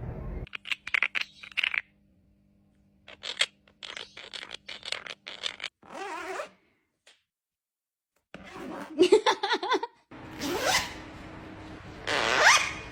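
A parrot mimicking a zipper: runs of short raspy zipping strokes, then two fast rising zips near the end.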